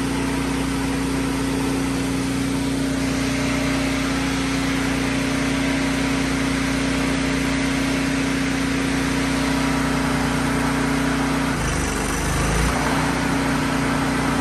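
Miller Trailblazer engine-driven welder running steadily, set to DC output to boost a dead excavator. Its low note changes briefly about twelve seconds in.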